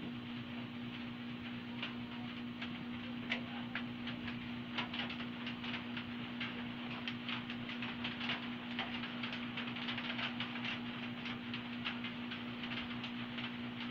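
Hand sewing of cloth: small irregular clicks and rustles of needle, thread and fabric, growing busier about five seconds in, over a steady low hum.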